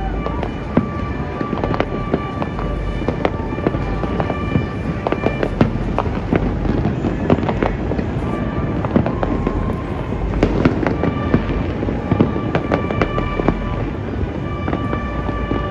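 Fireworks and firecrackers going off all over a city: a continuous dense crackle of many distant pops and bangs over a low rumble.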